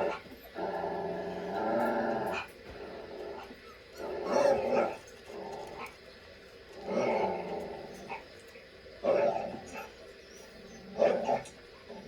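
Dogs barking and growling: a long drawn-out growl in the first two seconds or so, then single barks about every two seconds.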